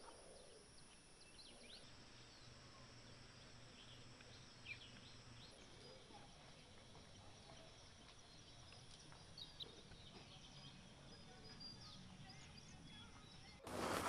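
Near silence: faint outdoor ambience with a few faint, short bird chirps. Near the end a louder noisy sound with scattered ticks cuts in abruptly.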